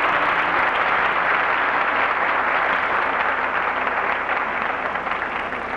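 Audience applauding steadily, slowly growing fainter toward the end. The sound is dull, with little treble, as on an old VHS recording.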